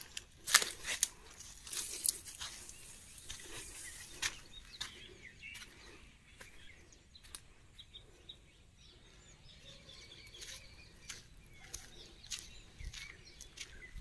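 Outdoor ambience with faint bird chirps, and several sharp clicks and crackles in the first few seconds.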